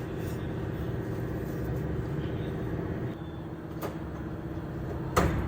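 Vehicle engine running steadily, with a sharp knock near the end.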